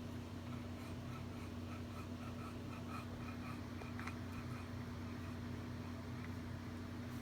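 Steady low hum, with a faint series of short beeps, about three a second, that stops about four and a half seconds in.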